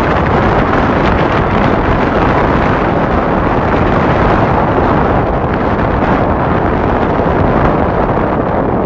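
Loud, steady wind buffeting the microphone at the bow of a tour boat under way.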